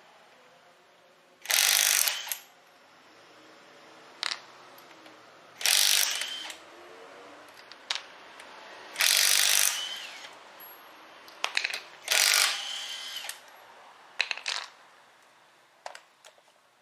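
Cordless impact wrench loosening wheel lug nuts: four short, loud bursts, one per nut, with a few clicks and clinks of the socket and nuts between them.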